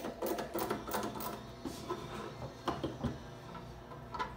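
Screwdriver turning a screw out of a bug zapper's plastic top cap: a quick run of rapid, evenly spaced clicks for about a second and a half, then a few separate knocks and clicks as the tool is put down and the cap is handled.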